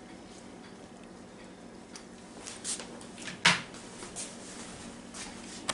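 Potatoes and vegetables frying with a faint hiss in a copper-coloured non-stick square pan, over a steady low hum. A few light clicks and one sharp clack about three and a half seconds in as a plastic spatula is put down.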